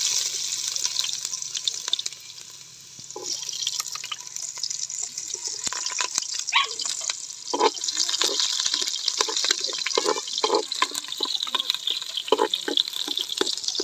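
Chopped garlic and onion sizzling in hot oil in a large pot, the sizzle starting suddenly as the garlic drops in. It dies down briefly about two seconds in, then picks up again with scattered crackles.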